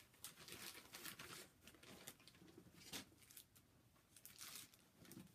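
Faint rustling and crinkling of packaging and project bags being handled, with scattered light crackles; the strongest comes about three seconds in.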